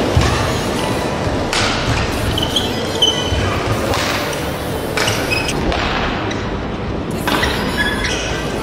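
Badminton rally heard in an echoing arena: rackets striking the shuttlecock, shoes squeaking on the court in brief high chirps, over steady crowd noise, with several short louder surges.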